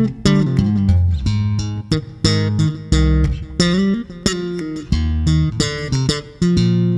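Instrumental background music: plucked guitar over a bass line, in quick notes, some sliding in pitch.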